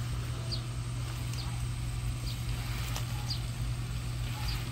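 LawnMaster OcuMow robot lawn mower running, its motors giving a steady low hum as it turns in place in long grass. Short high chirps repeat about once a second in the background.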